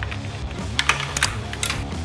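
Background music with a few sharp clicks in the second half, as a plastic zip tie is threaded and pulled through its catch.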